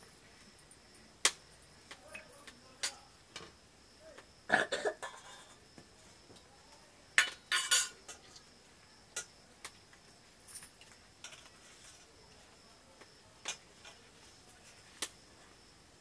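Stainless steel plates, bowls and spoons clinking and scraping now and then as rice is served and eaten, with two busier clatters about a third and halfway through.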